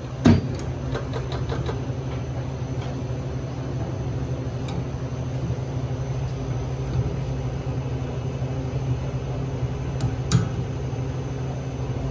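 Steady low machine hum with scattered sharp clicks and knocks, the loudest just after the start and two more about ten seconds in.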